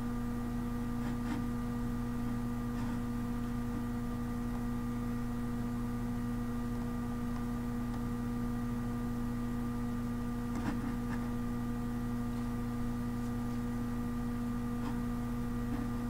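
Steady electrical hum with several fixed tones, the lowest the strongest, and a few faint, scattered clicks, one a little clearer about two-thirds of the way through.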